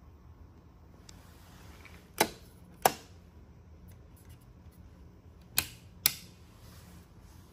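Bedside wall-panel light switch buttons pressed, giving four sharp clicks in two pairs a few seconds apart.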